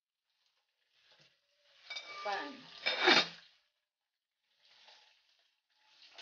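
Aluminium cooking pot lid set onto the pot with a metallic clatter and ring about two to three seconds in, over hot oil sizzling as fish fry in a pan.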